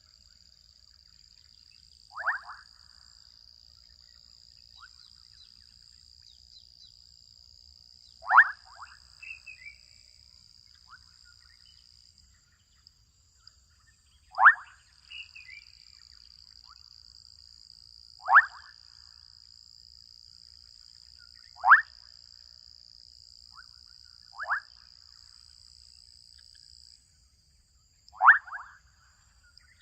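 Young frogs calling in a wetland: seven short, loud calls a few seconds apart, with softer calls between them. A steady high-pitched hum runs behind them and drops out briefly around the middle and again near the end.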